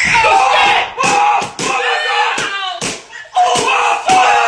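A man yelling loudly and hoarsely, with a run of sharp smacks and thuds as he scuffles.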